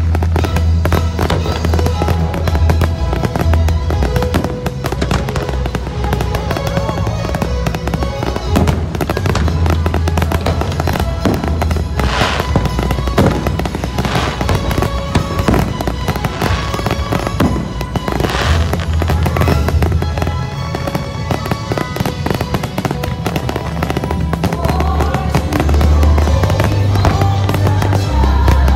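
Fireworks bursting and crackling over loud show music with a heavy bass. A run of louder bangs comes about halfway through.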